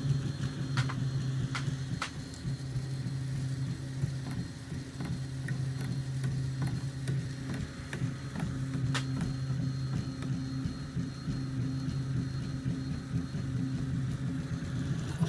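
Prusa i3 3D printer's stepper motors driving the axes through a dry run without filament: a steady low whine that shifts pitch now and then, with a few sharp ticks.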